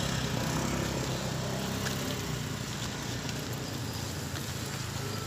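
Motor scooter engine idling close by, its low hum fading after two or three seconds, over a steady hiss of street traffic.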